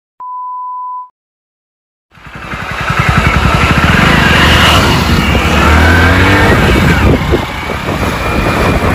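A steady one-second beep tone, then after a second of silence a motorcycle engine fades in and runs loudly as the bike rides along the road, its pitch rising and falling.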